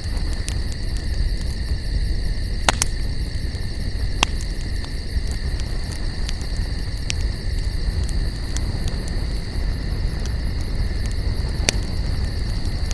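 Wood campfire crackling: a steady low rumble of burning with scattered sharp pops, the loudest about three seconds in and again near the end.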